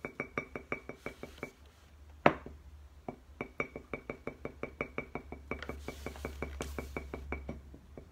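Background music: a fast, even run of short plinking notes, about six a second, that pauses briefly a second and a half in and starts again. A single sharp knock sounds about two seconds in, louder than the music.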